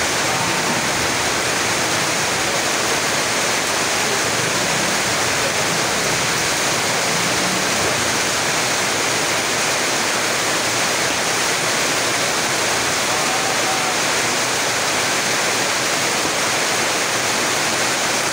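Rain falling steadily: a loud, even hiss that masks everything else.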